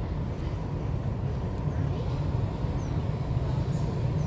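Steady low outdoor rumble with no distinct event standing out.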